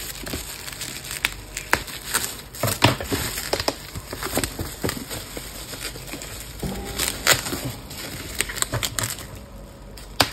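Plastic bubble wrap crinkling and crackling as it is cut with scissors and pulled apart by hand, with many irregular sharp clicks.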